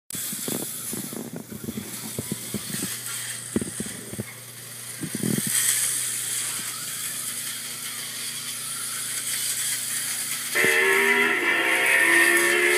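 HO slot cars running on a plastic track: a mechanical rattle with scattered clicks and knocks, then a louder buzzing whine of the small electric motors that starts about ten and a half seconds in and shifts in pitch in steps.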